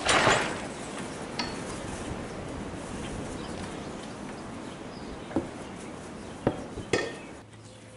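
A heavy black locust log being levered over with a cant hook on a portable sawmill's steel bed, making a loud scraping thud right at the start. A few sharp knocks and clanks follow as the log and tool settle against the mill.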